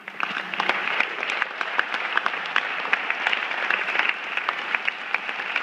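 Large audience applauding. The clapping breaks out suddenly at the start and keeps up steadily.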